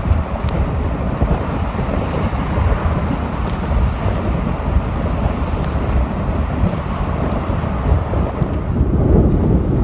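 Steady road and wind noise of a moving car driving on a wet road, with wind buffeting the microphone. It grows a little louder near the end.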